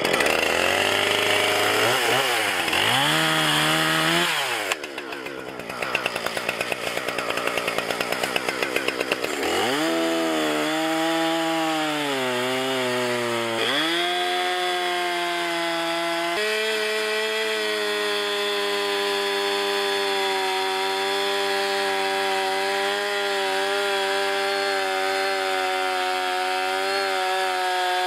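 Gasoline chainsaw cutting into the base of a maple trunk: the engine revs up and down several times with a pulsing stretch of lower running in the first half, then settles into a steady pitch under load in a long cut for the last dozen seconds.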